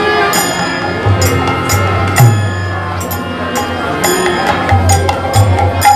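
Kirtan ensemble playing an instrumental passage: deep khol drum strokes and repeated sharp ringing strokes of small hand cymbals, under a held violin melody.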